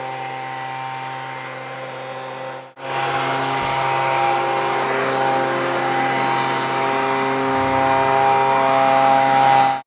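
Handheld leaf blower running steadily at a constant pitch, blowing dust off a paver driveway. There is a short break about three seconds in, then it runs on louder.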